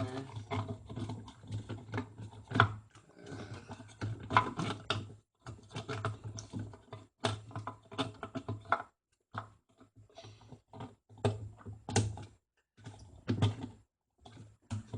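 Parts of a top-loading washing machine being handled and fitted into place: a run of irregular clicks, knocks and rattles with a few short pauses.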